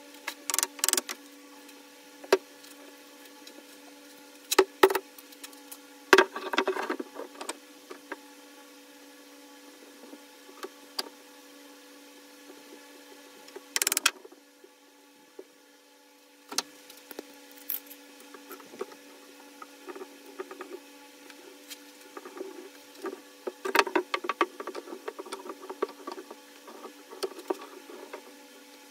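Scattered sharp clicks and knocks, some in quick clusters, over a steady low hum that drops out briefly about halfway.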